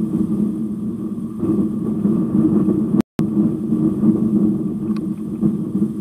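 Steady low engine drone over a rough rumble, with a brief dropout of all sound about three seconds in.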